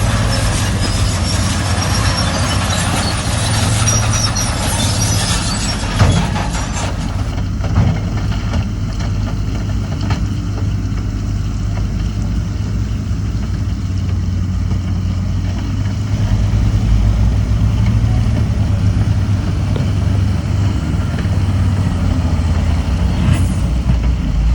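Heavy diesel earthmoving machinery running with a steady low engine drone. A harsh high hiss and rattle cuts off suddenly about seven seconds in, with a sharp knock just before. The engine rumble deepens and grows louder from about sixteen seconds.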